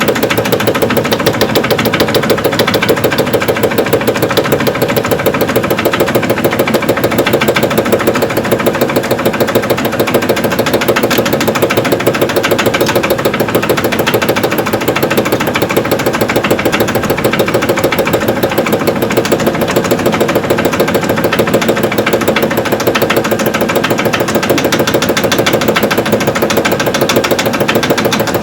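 A 1988 Evrika-3M semi-automatic washing machine on its spin cycle, the belt-driven stainless-steel drum turning with a fast, even knocking from the drum bearing: the knock of a bad bearing.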